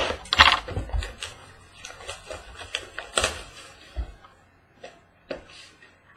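A trading-card box being opened and its packaging handled: irregular crackling rustles, tearing and sharp clicks of cardboard and wrapper.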